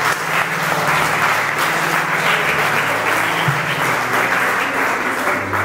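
A crowd of guests applauding steadily.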